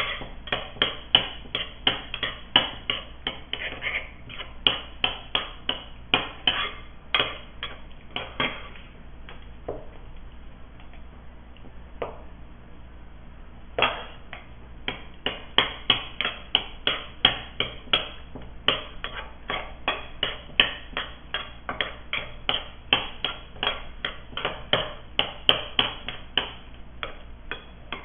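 Spoons clinking and knocking against bowls and a stainless-steel pot as food is stirred and eaten: quick sharp clicks, about two or three a second, with a pause of a few seconds in the middle.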